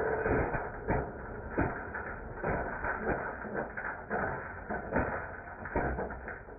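Personal blender running with a plastic credit card inside, the card knocking and clattering irregularly against the blade and the plastic cup, a few knocks a second over the motor's low rumble.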